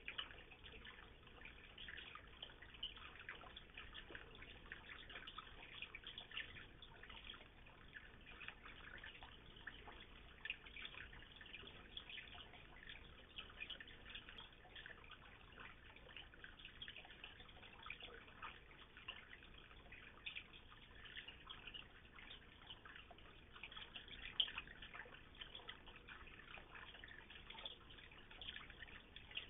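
Water pouring into a koi pond and splashing on its surface: a faint, steady patter of small drips and splashes, with one louder splash late on.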